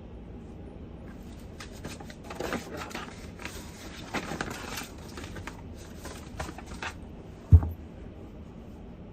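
Irregular rustling and scraping of objects being handled for about five seconds, then a single dull thump near the end, over steady low background noise.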